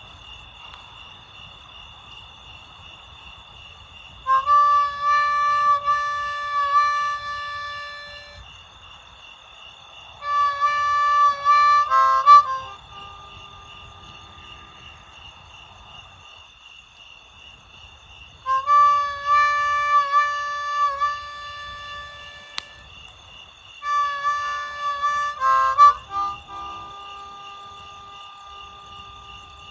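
Harmonica played in four short phrases of held notes with pauses between them, and a few softer notes near the end. A steady, pulsing insect chorus of crickets runs underneath.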